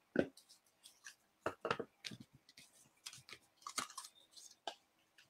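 Paper and card pieces and a liquid glue bottle being handled on a craft desk: a string of short taps, clicks and crisp paper rustles as the bottle is picked up and uncapped to start gluing.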